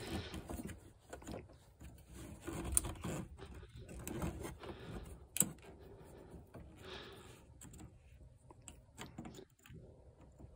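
Faint scattered clicks and scrapes of a flathead screwdriver prying at a plastic fuel-line quick-connect fitting on a fuel pump module, with one sharper click about five seconds in.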